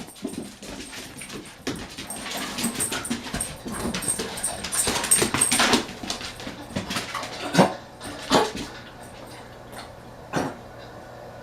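A dog whining and yipping in a run of short, sharp sounds, with three louder yips in the second half.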